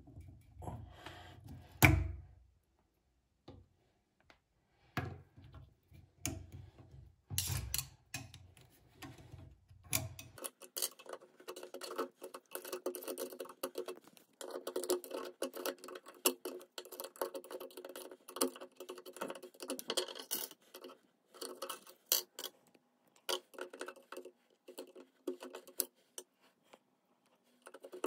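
Small clicks, taps and scraping of metal tools and plastic cartridge parts inside the chrome body of a Hansgrohe Focus 100 mixer tap while the cartridge is being removed. There is a sharp knock about two seconds in, and from about ten seconds on a denser run of quick clicks and scraping as a thin metal pick works inside the tap body.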